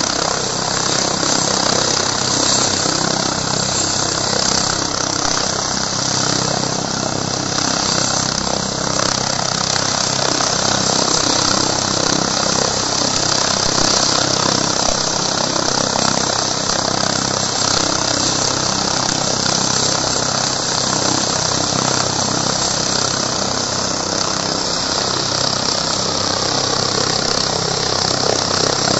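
Helicopter's turbine engines and rotors running steadily at close range, a continuous whine and whoosh of the main rotor and ducted fenestron tail rotor.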